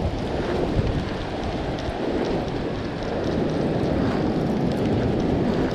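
Wind buffeting the microphone over the steady rush of breaking surf.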